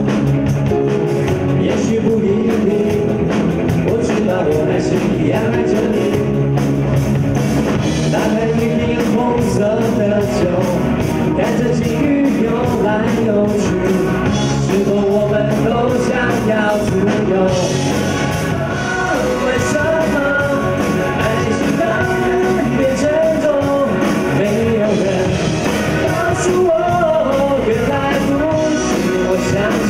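A pop-rock song performed live, with male and female singers singing into handheld microphones over a band with drums.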